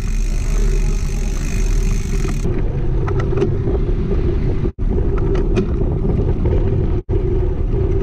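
Wind buffeting and road rumble on a bicycle-mounted action camera while riding on tarmac, a dense steady rush. It breaks off for an instant twice, in the second half.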